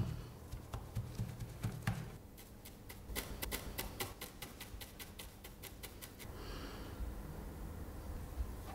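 Cloth rubbing over a drawing, then a quick run of light clicks, about five a second for some four seconds, as a pencil tip taps on paper. A breath through the nose follows.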